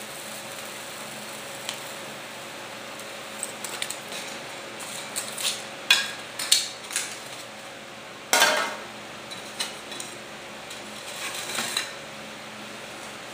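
Foam board bulkhead pieces being handled and rubbed together: a string of short squeaks, scrapes and knocks. The loudest come about six seconds in and at eight and a half seconds, the last a half-second scrape, over a steady background hiss.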